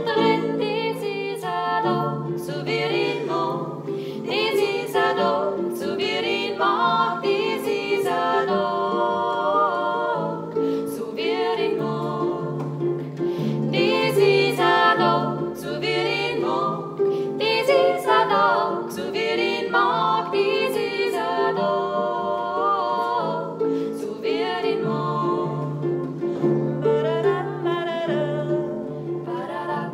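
Women's voices singing a song in harmony, accompanied by a plucked harp.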